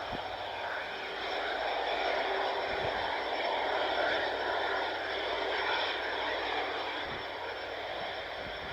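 Airbus A330's twin jet engines running, a steady rush with a whining tone held throughout, plus a few brief low thumps.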